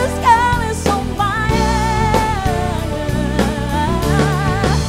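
Live pop band playing: a lead singer holds wavering, vibrato-laden notes over keyboard, drum kit and electric bass.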